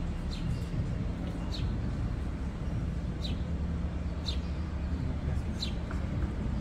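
Steady low rumble of street traffic, with short, high bird chirps about every second or so.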